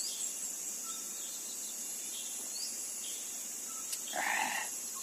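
Steady high-pitched chorus of crickets or other insects, with a few short rising bird chirps over it. About four seconds in there is a brief, half-second sound of unclear source.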